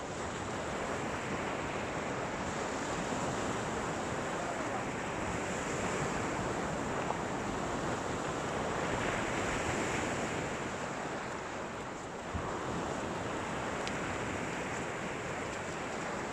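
Surf breaking and washing up a shingle beach, a steady rush of waves that swells and eases a little, with some wind on the microphone.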